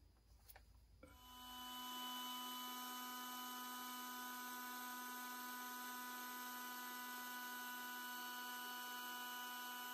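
Handheld electric air pump switching on about a second in and running steadily, a constant motor whine over a rush of air, as it inflates a vinyl inflatable pool through its valve.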